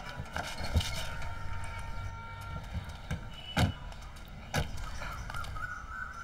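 A car door shut with a sharp knock about a second in, then two more knocks a little later, over a faint steady high tone.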